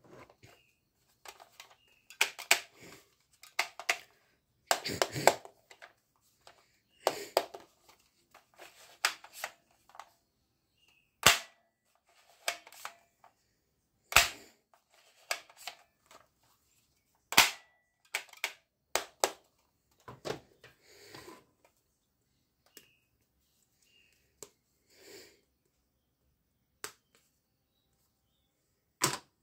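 Plastic toys clattering and being handled, with three sharp single clicks about three seconds apart near the middle from a blue plastic toy gun being fired; two of the clicks leave a brief ringing tone.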